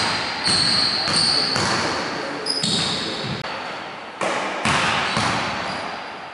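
Basketball bouncing on a hardwood gym floor during shooting practice: about five sharp thumps, each trailing a long echo in the large hall.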